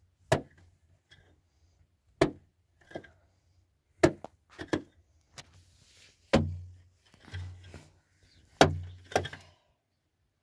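A series of about ten sharp, irregular thuds or knocks of uneven strength, like blows struck on wood.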